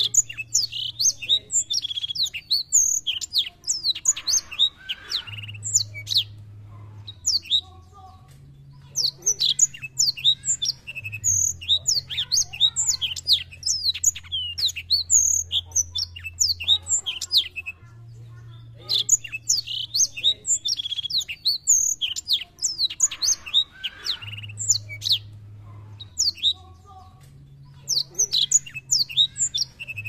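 Caged black-throated canary singing a fast, varied song of high chirps and trills, in long bursts broken by short pauses.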